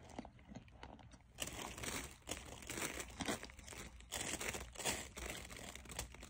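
Close-miked crinkling and crackling in irregular clusters, getting busier after about a second and a half, from baked cornstarch chunks being crunched and broken.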